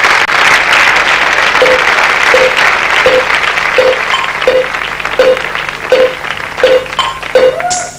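Studio audience applauding, the applause slowly thinning, as the music begins underneath with a short note repeating about every three-quarters of a second.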